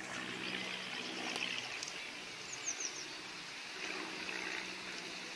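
Steady rushing of a running stream, with three quick high chirps about halfway through.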